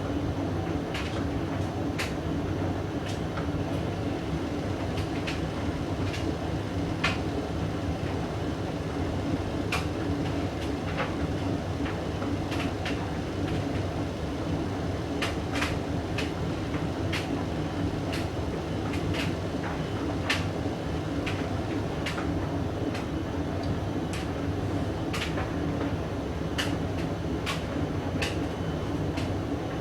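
Hoover DYN9144D3X front-loading washing machine running steadily with a Candy motor, a low hum with scattered light clicks and knocks from the drum and its load of blankets.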